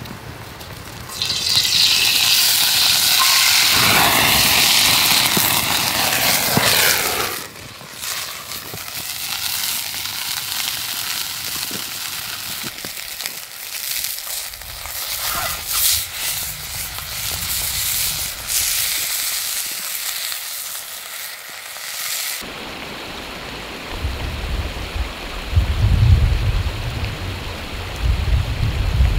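Oil poured into a hot frying pan over a campfire sizzles loudly, then food fries in it with a steady hiss and frequent spitting pops. About 22 seconds in the frying stops abruptly and a low, gusting rumble follows.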